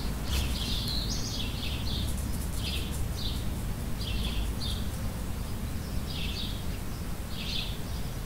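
Birds chirping in short, high calls, repeated about once a second, over a steady low background rumble.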